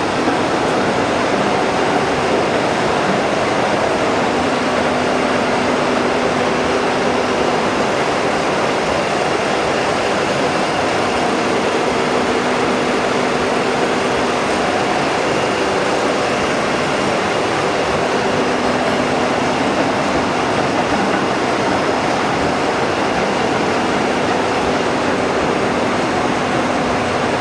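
Metal lathe running while turning a long pipe supported in a steady rest: a steady mechanical din, with faint humming tones that come and go.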